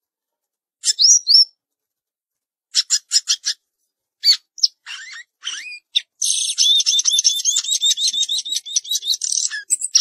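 Caged samyong songbird singing: a few separate high whistled notes and short chirps, then about six seconds in a fast, continuous run of repeated warbled notes.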